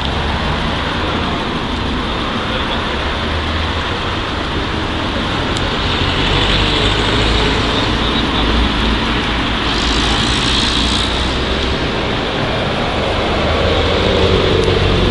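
Road traffic on a city street: a steady rumble of engines and tyres, with a brief hiss about ten seconds in and a vehicle drawing closer near the end.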